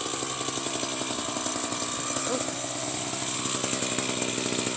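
Pole chainsaw on an extension pole running steadily, its motor holding an even speed.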